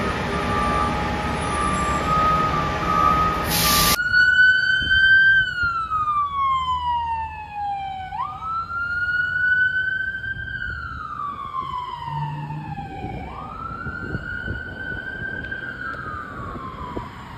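Electronic siren of a fire department rapid response vehicle in a slow wail. Each cycle rises quickly and then falls over about three seconds. It starts abruptly about four seconds in, after a steady engine rumble with a high tone.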